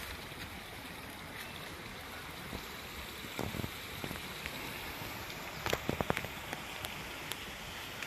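Steady rush of a fast-flowing river, with a few short sharp clicks and rustles around the middle.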